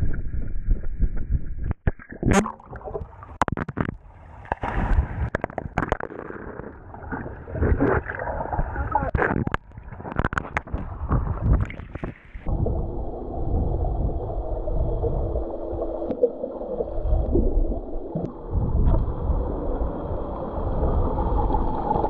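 Pool water splashing and slapping against an action camera's waterproof housing as swimmers jump in, with many sharp irregular cracks. About twelve seconds in it changes to a duller, muffled rush of water with the camera under the surface among bubbles.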